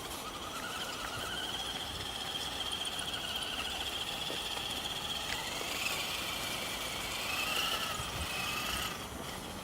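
Electric drive motor and gearbox of an Axial 4x4 RC jeep whining as it drives, the pitch wavering up and down with the throttle, then cutting off about nine seconds in.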